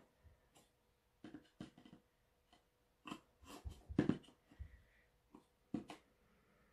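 Quiet, scattered clicks, taps and scrapes of a smartphone's retail box being handled on a table while its seal is cut open with a small knife, with the loudest knocks around the middle.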